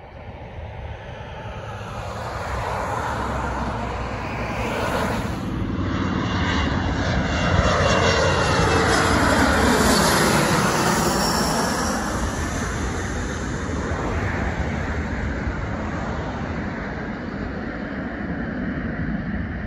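A Bombardier CRJ-700 regional jet's rear-mounted turbofans on landing approach, passing low overhead. The noise builds to its loudest about halfway through, with a whine that falls in pitch as the jet goes by. It then eases into a steadier, more distant engine noise as the jet reaches the runway.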